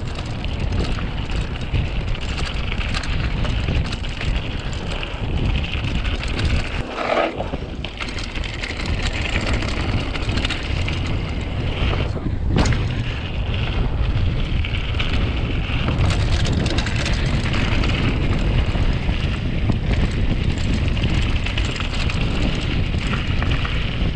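Wind buffeting a GoPro Hero7's microphone over the rumble and rattle of a mountain bike rolling along a dirt singletrack, steady throughout, with a single sharp knock about halfway through.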